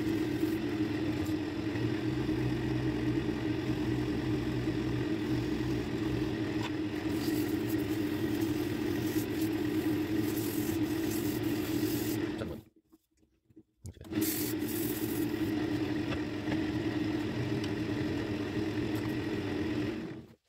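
Wood lathe motor running steadily as a mahogany spindle is sanded by hand, with a light scraping hiss of sandpaper over the hum. The sound cuts out for about a second a little past halfway, comes back, and stops abruptly near the end.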